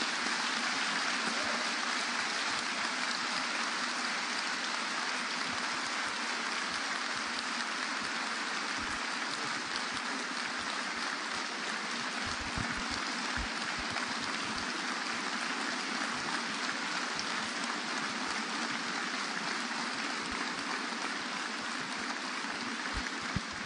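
Audience applauding steadily, a dense even clapping that begins to die down near the end.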